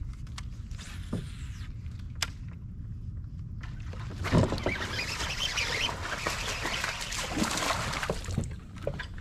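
A largemouth bass striking a topwater frog lure with a sudden loud splash about four seconds in, followed by about four seconds of splashing as the hooked fish thrashes at the surface.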